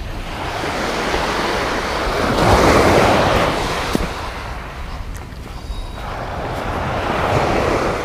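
Surf breaking on a pebbly shore, a steady rushing wash that swells twice, about three seconds in and again near the end, with wind buffeting the microphone.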